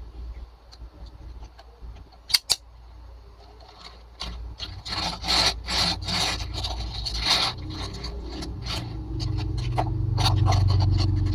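Small cardboard and plastic packaging of a Tomica diecast car being handled: rubbing and scraping strokes, with two sharp clicks about two seconds in.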